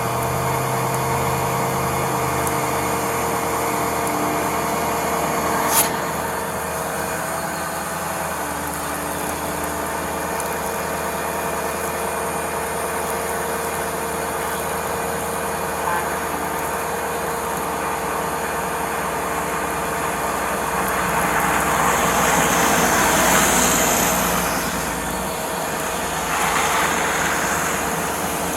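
Tow truck engine running steadily at idle with a constant whine during a winch recovery. There is one sharp click about six seconds in, and a louder rushing noise swells and fades near the end.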